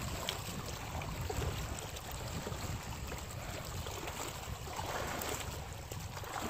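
Wind rumbling steadily on the microphone over a faint wash of water.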